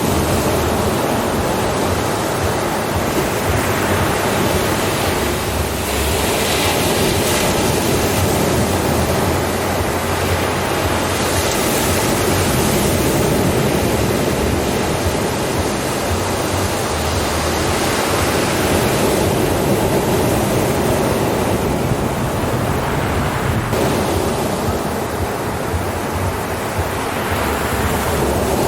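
Ocean surf washing onto a shore: a continuous rush of breaking waves that swells and eases every several seconds.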